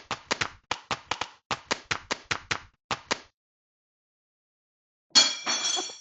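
A quick run of sharp claps, about four a second, stopping after about three seconds. About five seconds in, a parrot gives a short, harsh, high-pitched call.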